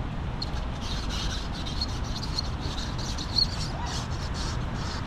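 Wind buffeting the microphone: a steady rumbling rush, with a few faint high chirps and one brief louder peak about three and a half seconds in.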